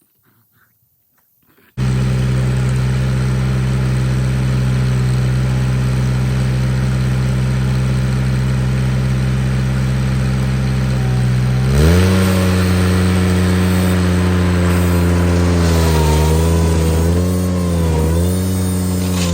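Ventrac compact tractor's engine running at a steady speed, coming in suddenly about two seconds in. Near the middle it revs up, and later its pitch dips and recovers a few times.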